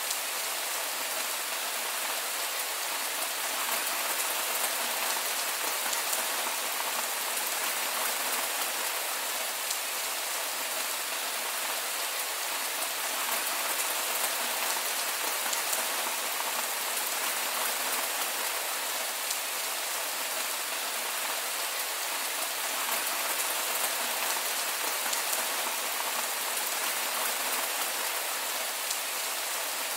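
Heavy rain falling steadily, a dense, even hiss of drops with no thunder.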